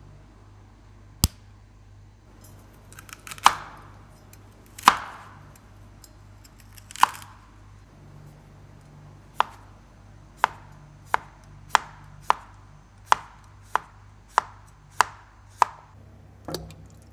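Sharp knocks, each with a brief ringing tail, like a knife chopping on a board. A few come spaced out, then about halfway through they settle into a steady run of roughly one and a half knocks a second.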